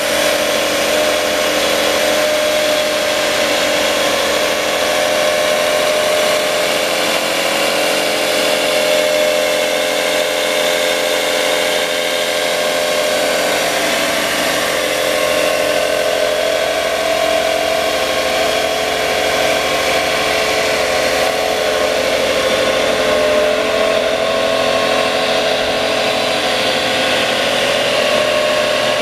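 Porter-Cable industrial belt sander running steadily under power: an even machine hum with a strong mid-pitched tone that holds without change.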